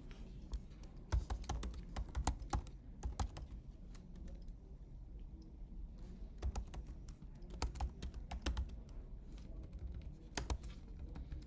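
Typing on a computer keyboard: quick runs of key clicks in a few bursts, with a pause of a couple of seconds near the middle.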